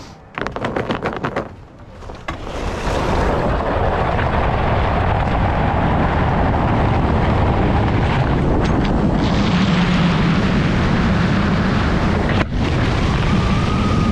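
Ski jumper's skis clattering briefly as he leaves the start, then wind rushing over the helmet camera and skis running in the inrun track, building to a loud steady roar with speed. It drops out briefly once near the end, and a thin whistle rises over the wind in the last second.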